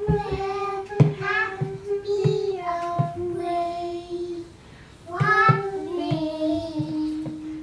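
A child singing a simple tune in long held notes, with a short break a little past halfway. Light regular knocks sound along with the singing, keeping a rough beat.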